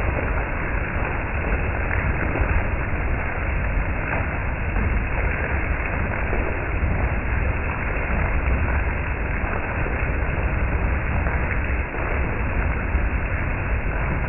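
Summer-storm wind blowing hard and buffeting the microphone: a steady rushing noise over a low, gusting rumble.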